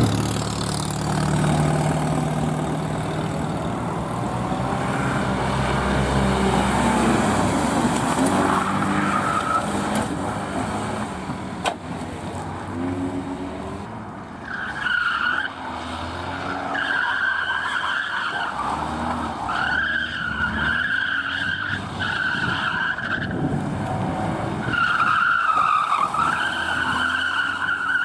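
Classic cars driven hard: an engine running and revving as a car accelerates, then, from about halfway, tyres squealing in repeated bursts as cars slide through tight turns on asphalt.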